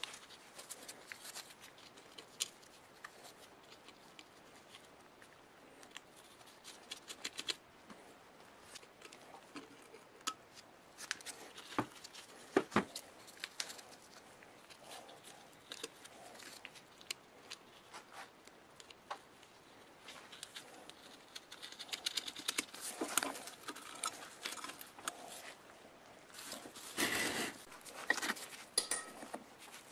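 Small metallic clicks, taps and scrapes of hand tools working on the rusty metal housing of an old electric motor: terminal nuts being loosened, then a screwdriver prying at the end cover. The sounds are sparse at first and come thicker in the last several seconds.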